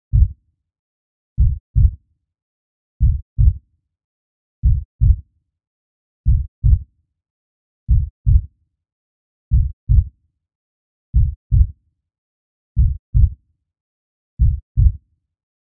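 A slow heartbeat sound effect: pairs of low thumps, lub-dub, about every second and a half, with silence in between.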